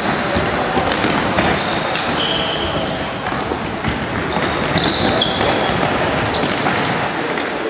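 Floorball game sounds in a sports hall: sports shoes squeaking briefly several times on the wooden floor, clicks of plastic sticks and ball, and players' voices over a steady din that echoes in the hall.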